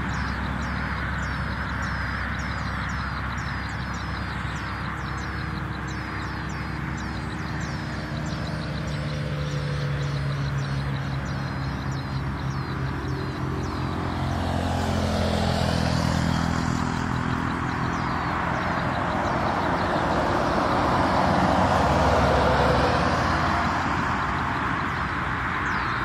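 A motor vehicle engine runs throughout, its pitch climbing over several seconds mid-way and its sound swelling twice in the second half. Quick, high descending bird chirps, about two a second, sound over the first third.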